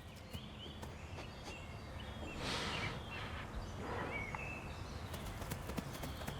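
Outdoor field ambience: a low steady rumble with a few short, high bird chirps, two breathy swells of noise in the middle, and light clicks near the end.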